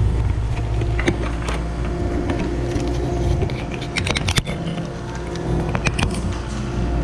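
A plastic tarp being pulled over the top of an ice cream freezer case, crackling in short bursts about a second in and again around four seconds, over the steady low hum of the running refrigeration unit.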